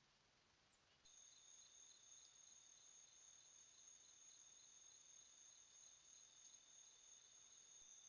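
Faint chorus of night-singing insects such as crickets: a steady high trill with a lower chirp pulsing about three times a second. It starts suddenly about a second in.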